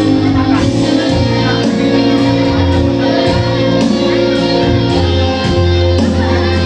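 Music with guitar and a steady bass line playing continuously.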